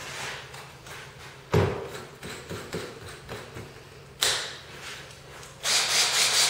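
Workshop tool handling while a cordless drill is readied: a heavy thud, a few light taps, a sharp clack, then about a second of rapid rasping clicks near the end.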